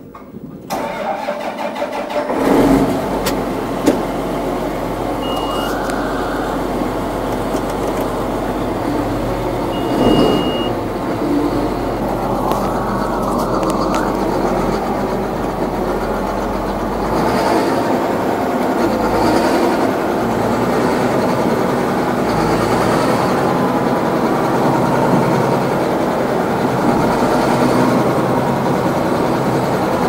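John Deere 8130 tractor's diesel engine starting about two and a half seconds in, then running steadily as the tractor drives off, heard from inside the cab.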